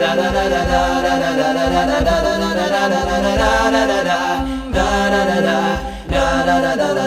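Background music: an a cappella nasheed, several voices singing together in held, gliding harmony.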